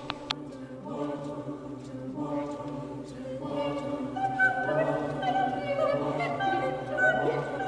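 Choir singing long held notes in several overlapping parts, growing louder and fuller about halfway through.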